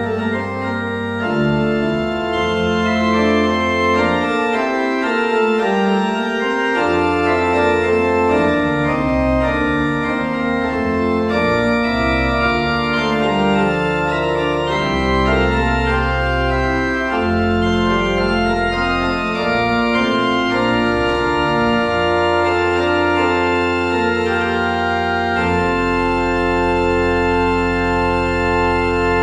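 Church organ playing sustained full chords over deep, slowly changing bass notes.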